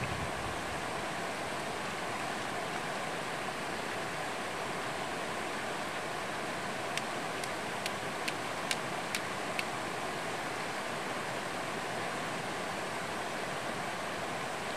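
Shallow mountain stream rushing over rocks, a steady even wash of water. About halfway through comes a quick run of about seven light clicks over some three seconds.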